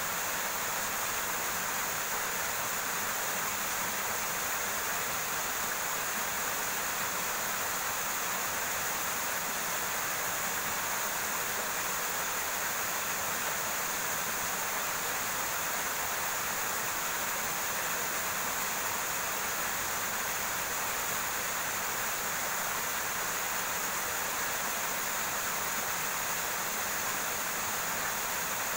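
Small river running steadily over rocks, an even rushing of water.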